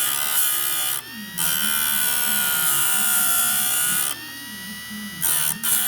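An electric chainsaw-chain sharpener running, its grinding wheel pressed against a chain tooth with a harsh, high grinding hiss over a steady motor whine. The grinding drops away twice, briefly about a second in and for about a second past the four-second mark, as the wheel comes off the tooth, while the motor keeps running.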